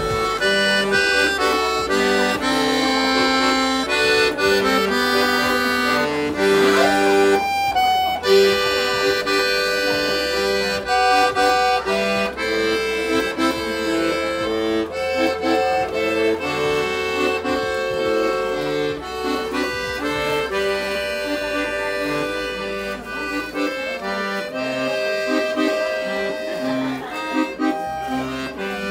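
Piano accordion playing a tune, a melody over held chords. A short noisy burst breaks in about eight seconds in.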